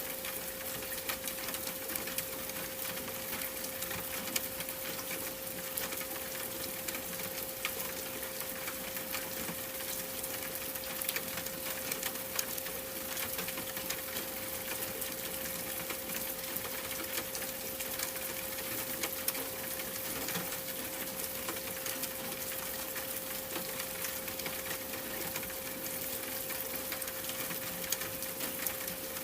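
A steady 528 Hz pure tone held without change, over a constant hiss flecked with many tiny ticks, like a bed of falling rain.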